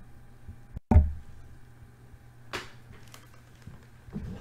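A single heavy, dull thump about a second in, followed by a sharp click halfway through and a few fainter knocks near the end.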